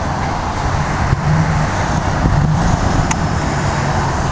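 Steady car engine and traffic noise, a low rumble with short rises in engine pitch here and there.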